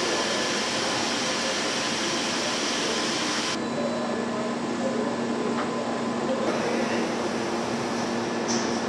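Steady machinery and ventilation hum of a factory assembly hall. About three and a half seconds in, the sound changes abruptly: the hiss dulls and a low steady hum comes forward, then the brighter noise returns about three seconds later.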